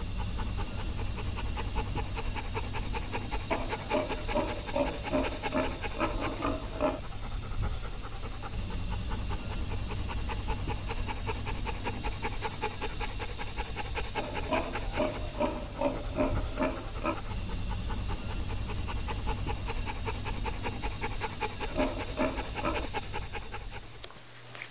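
German shepherd panting hard and fast, in quick rhythmic breaths, while mounting a pig. In three stretches the breaths grow louder and take on a pitched tone.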